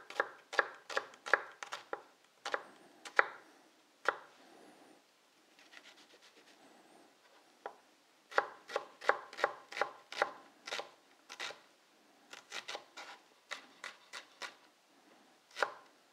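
Chef's knife chopping a red onion on a cutting board: runs of sharp taps about three a second, with a quieter stretch of a few seconds about a third of the way in.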